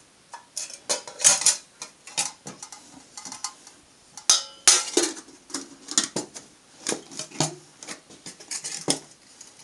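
Stainless steel camping pots and lids clinking and clattering as they are handled, nested and stacked, with a short metallic ring from one strike about four seconds in.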